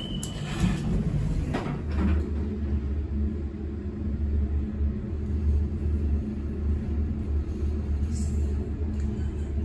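Elevator car travelling down its shaft: a steady low rumble that sets in about two seconds in, after a few clicks as the car gets under way.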